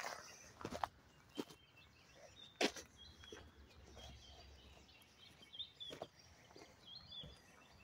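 Small birds chirping over quiet outdoor background noise, with a few irregular crunching steps on gravel; the sharpest comes a little under 3 seconds in.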